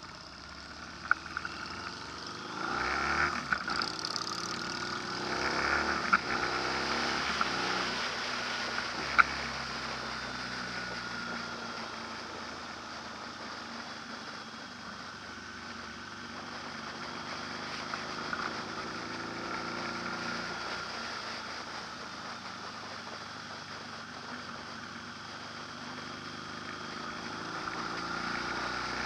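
An engine running, its pitch slowly rising and falling, with a few sharp clicks in the first ten seconds.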